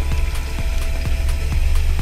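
Outboard motor idling with a steady low rumble and irregular sharp clicks, under background music.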